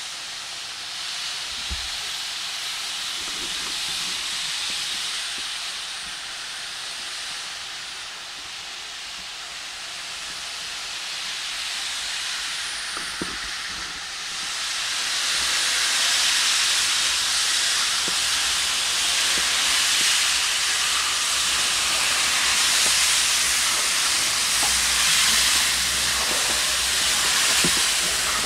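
Steam locomotive, LMS Black Five No. 5025, hissing steam from its side, with a low rumble underneath; the hiss swells much louder about halfway through and stays loud.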